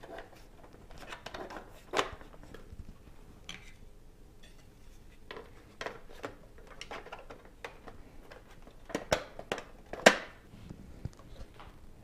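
Front drive-bay cover being fitted back onto a Corsair Carbide 300R PC case: scattered clicks, light knocks and rattles as it is pressed into place, with a sharper snap about two seconds in and another about ten seconds in.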